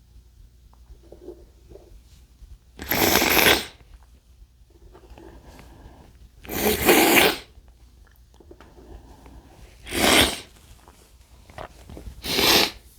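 A man sneezing four times, each sneeze a loud, short burst a few seconds apart, with quieter breathing between them.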